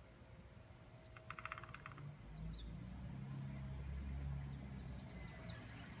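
A woodpecker's quick burst of about a dozen rapid taps on a dead tree, lasting under a second. A low rumble sets in about two seconds in and is the loudest sound. Faint short bird chirps come at moments.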